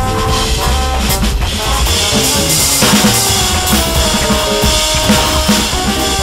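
Roland V-Drums electronic drum kit played in a jazz four-beat, its drum sounds coming from the sound module. It plays over a sequenced backing track with bass and pitched keyboard-like notes.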